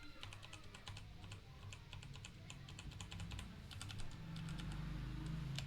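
Typing on a Kreo keyboard: a quick, uneven run of key clicks, with a low hum coming up about four seconds in.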